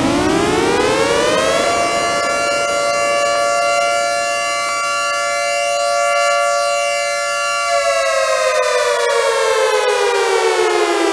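Federal Signal 3T22 mechanical warning siren winding up, holding a steady chord for about six seconds, then winding down in a long falling pitch.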